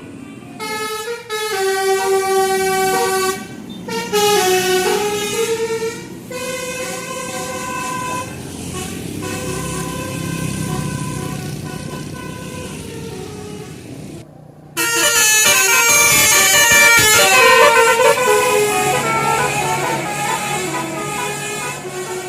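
Bus telolet horns, multi-tone horns playing short stepping tunes with several notes sounding together, over bus engines running. After a brief gap about two-thirds in, the horn tunes come back louder and busier.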